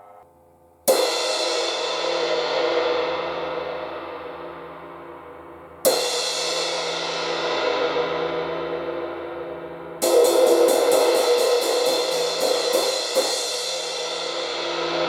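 A MEINL Byzance Dark Crash 16" cymbal, unlathed, is struck three times, each crash fading off. After the third crash it is played with a run of quick strokes, about four a second, with one harder accent near the end.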